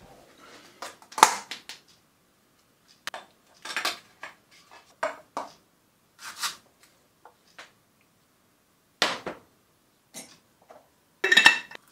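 Kitchen clatter: mugs, a teaspoon and a plastic tub being knocked and set down on the worktop, in a string of separate short clinks and knocks with gaps between them. The loudest knock comes about a second in, and another cluster comes near the end.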